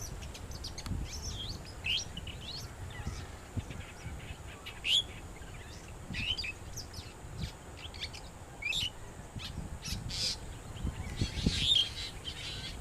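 Long-tailed shrike mimicking a black drongo's calls, mixed with a drongo calling in the background: a string of short, sharp chirps and gliding notes at irregular intervals, some louder than others.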